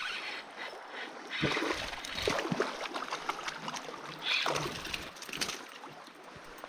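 Splashing and wading steps in shallow water among stones, over the steady rush of a river. There are two louder stretches of splashing, about a second and a half in and again about four seconds in.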